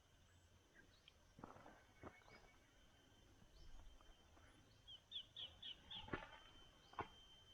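Faint outdoor ambience: a steady high insect whine, and a small bird chirping a quick run of four short notes about five seconds in. A few soft knocks are scattered through.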